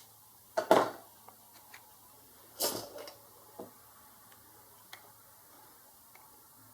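A few short clicks and brief scrapes from small hand tools working on a circuit board. Two louder scrapes come about half a second and two and a half seconds in, followed by fainter single ticks.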